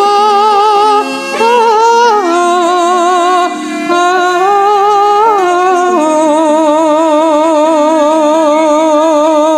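Male sinden singing a Javanese tembang in a high, woman-like voice, holding long notes with a strong wavering vibrato, over traditional instrumental accompaniment.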